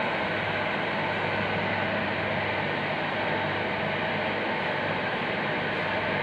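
Steady hiss with a low hum underneath, even in level, with no distinct events.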